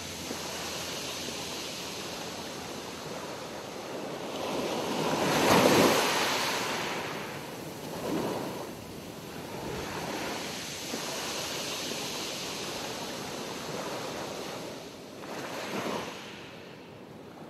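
Ocean surf: waves washing in as a steady hiss that swells and falls, the largest surge about six seconds in and smaller ones around eight and sixteen seconds, thinning out near the end.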